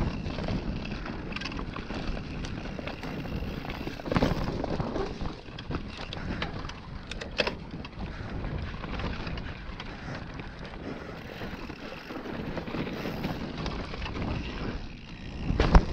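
Mountain bike riding fast down a dirt trail: steady wind noise on the microphone over tyre noise on the dirt, with a few sharp knocks from bumps, the loudest near the end.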